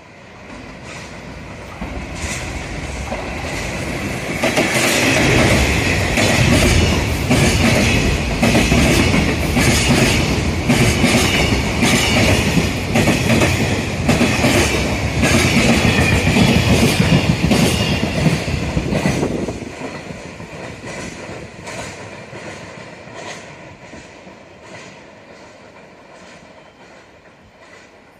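Container freight train hauled by a JR Freight ED76 electric locomotive, passing through a station at speed. The sound builds as it approaches, then the wagon wheels clatter over the rail joints in a regular clickety-clack while the wagons pass close by, and it fades away over the last several seconds.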